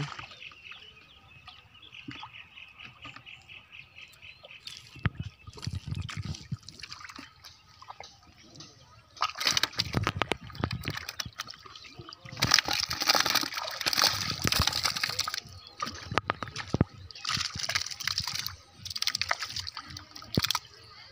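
Shallow water sloshing and splashing in repeated bouts as hands grope through it for fish, with quieter stretches in between.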